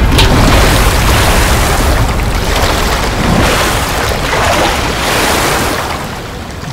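Rushing floodwater: a loud, continuous wash of surging water and waves that eases off near the end.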